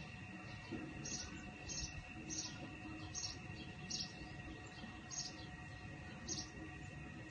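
Short high chirps from a bird, repeated about once or twice a second at uneven spacing, over a faint steady hum.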